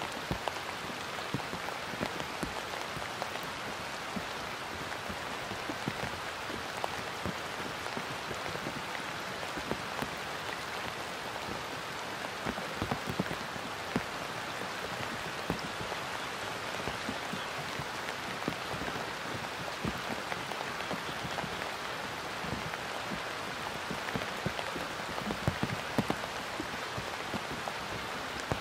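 Steady rain falling on open water and grass, an even hiss dotted with many small, scattered drop taps.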